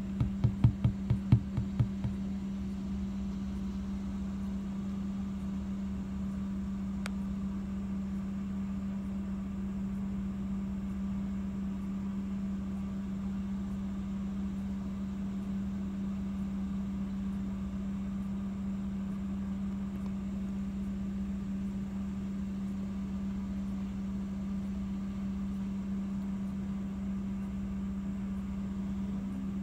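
Steady machine hum with one constant low tone. In the first two seconds, a quick run of about eight thumps, roughly four a second, louder than the hum.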